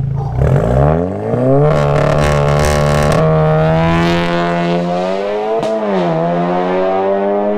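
Stage 3 VW Golf 7R's turbocharged 2.0-litre four-cylinder, with a Turbo Technics V5 turbo and 76 mm turbo-back exhaust, accelerating hard away. Revs climb steeply over the first second or so, then hold a high note with a crackly rasp for a while. The note drops briefly and recovers about six seconds in, as at a gear change.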